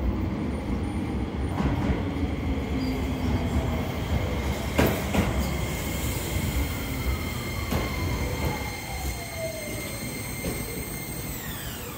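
Keio 8000 series electric train running, its Hitachi SiC-VVVF inverter and traction motors giving several steady high-pitched tones over the rumble of the wheels. A lower tone slides steadily down, and the high tones bend sharply downward near the end. A few sharp clicks of the wheels over rail joints come about halfway through.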